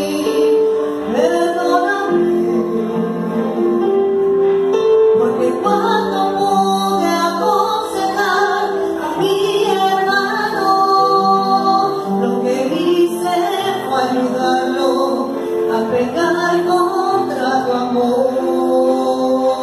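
A woman singing a slow Catholic worship song in Spanish through a microphone and PA, over held chords on an electronic keyboard.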